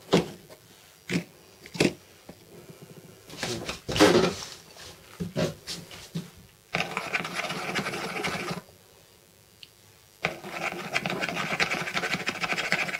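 A few light knocks and clicks of parts being handled on a hard plastic case lid. Then a pencil scratches rapidly across the plastic in two runs of about two and three seconds, marking the position of a round part.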